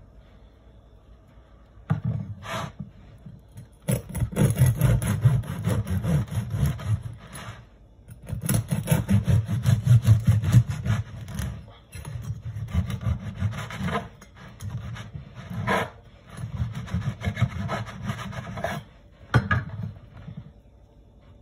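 Serrated bread knife sawing through a crusty sesame sourdough loaf on a wooden cutting board, with quick back-and-forth rasping strokes. The strokes come in several runs with short pauses and stop shortly before the end.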